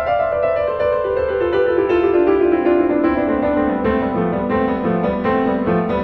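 Background piano music, a melody stepping steadily downward note by note.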